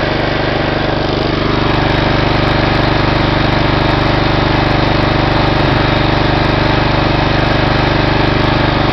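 1988 John Deere 14SE walk-behind mower's Kawasaki FC150V single-cylinder engine running steadily at an even speed, freshly started from cold.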